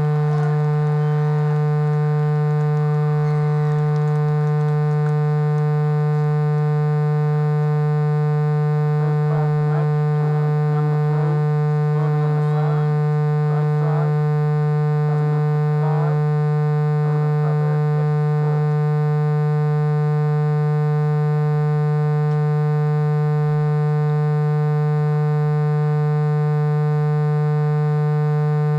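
A loud, steady low-pitched buzz with many overtones, unchanging throughout, of the kind left by electrical interference on a recording. Faint wavering calls sound over it in the middle.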